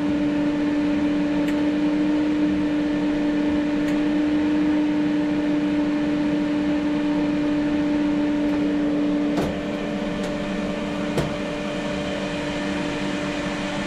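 Parweld XTM 211Di inverter welder switched on and running, a steady machine hum with a strong tone that cuts off about nine seconds in, leaving a quieter hum. A few sharp clicks follow.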